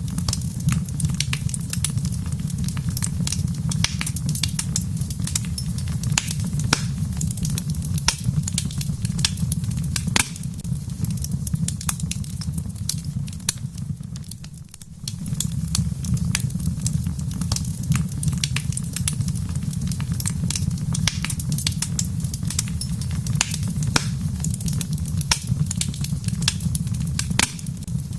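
Wood fire crackling, with frequent sharp pops and snaps over a steady low rumble. The rumble fades briefly about halfway through.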